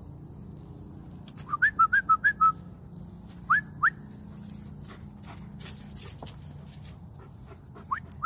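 A person whistling to call dogs: a quick run of short rising whistles about a second and a half in, two more a second later, and two near the end. Footsteps crunch through dry leaf litter in between.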